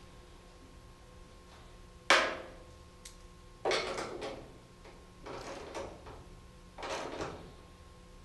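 Four short metallic knocks and rattles as a loose front fender on a Chevy square-body K5 Blazer is shifted into line and its top mounting bolt is worked with a ratchet. The loudest is a sharp clunk about two seconds in.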